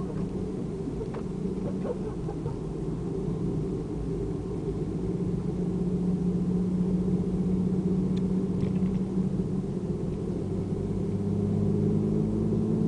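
Nissan 350Z's 3.5-litre V6 with an Amuse full exhaust, heard from inside the cabin while being driven hard: a steady engine drone that climbs in pitch and loudness from about halfway, eases briefly, then climbs again near the end. A few faint clicks sound over it.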